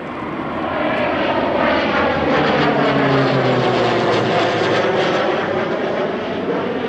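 Pilatus PC-12 NG single-engine turboprop (Pratt & Whitney PT6A) flying past overhead in a banking turn. Its engine and propeller sound swells to its loudest about three seconds in, then the pitch drops as it passes.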